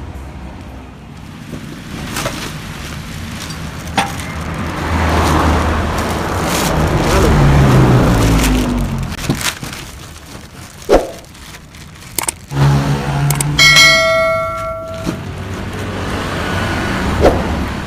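Yamaha RX-King two-stroke motorcycle engine running and revving through its rebuilt exhaust, swelling louder in the middle and then easing off. About two-thirds of the way through, a clear bell-like ringing tone sounds for about a second.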